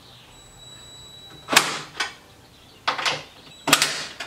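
Drill driving a 10 mm socket onto a front-grille nut in about four short bursts, snugging the nut on plastic without over-tightening it.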